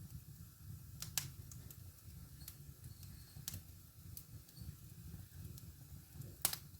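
Wood fire burning in a fireplace: a steady low rumble of flames with scattered sharp crackles and pops, the loudest pop near the end.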